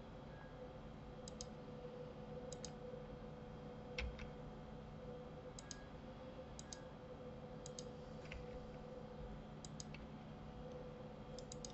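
Computer mouse button clicks, mostly in quick press-and-release pairs every second or two. There is one heavier knock about four seconds in, over a faint steady hum.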